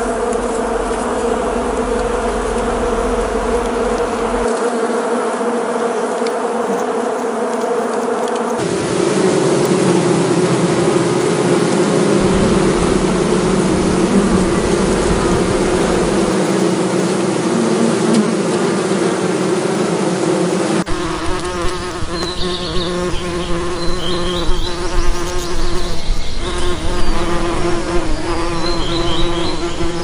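A swarm of bees buzzing in a dense, steady drone. The sound shifts abruptly about 9 and 21 seconds in, where different recordings are joined. Short high chirps sound over the drone in the last third.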